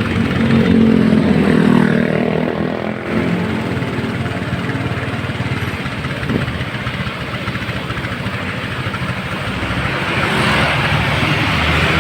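Road vehicle engine running with traffic noise. A pitched drone is loudest over the first three seconds and then gives way to a steady engine hum.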